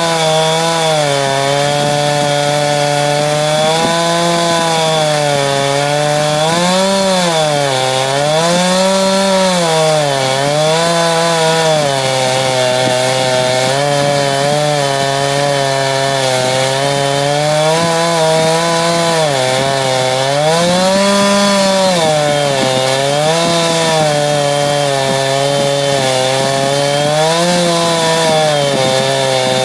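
Chainsaw running under load as it rip-cuts lengthwise along a log to slab off a board. Its engine speed sags and recovers every few seconds as the bar bites into the wood.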